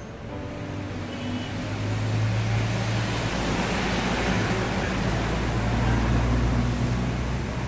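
Low rumble of a motor vehicle engine running nearby, growing louder about two seconds in and then holding steady.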